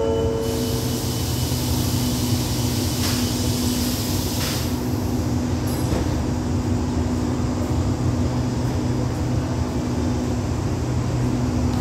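Diesel train standing at the platform with its engine idling: a steady low hum with a held tone. The last note of a descending station chime fades in the first second, and a high hiss runs for the first four or five seconds.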